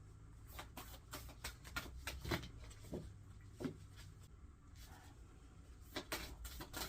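Faint handling noises: scattered soft taps and rustles over a low steady hum, with a few sharper clicks around two and six seconds in.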